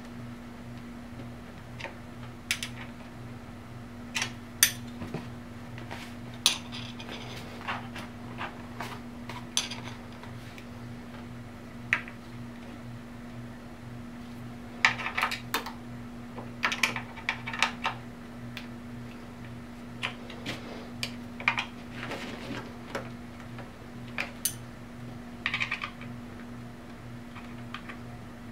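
Small metal hand tools, a wrench and a hex key, clicking and clinking against a motorcycle hand guard's metal bracket and bolts, with a few short runs of rapid clicks as bolts are turned. A steady low hum runs underneath.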